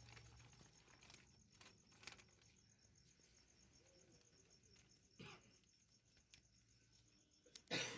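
Near silence: faint background ambience with a few soft clicks and one short sharper click near the end.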